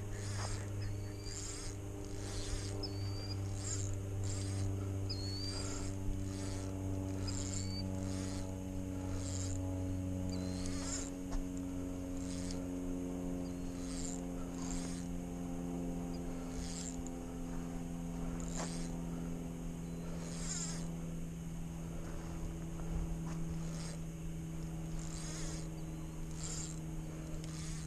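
Lakeshore evening outdoor sounds: short high chirps repeat about once a second over a steady low drone that slowly falls in pitch.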